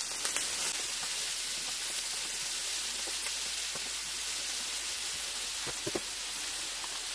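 Chopped leeks, celery, green onion and red pepper sizzling in oil in a frying pan at low heat, stirred with a wooden spoon: a steady hiss with a few light taps of the spoon, the clearest near the end.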